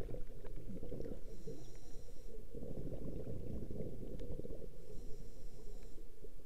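Scuba diver's breathing heard underwater: a low bubbling rumble from the regulator, with a faint high whine twice, each about a second long.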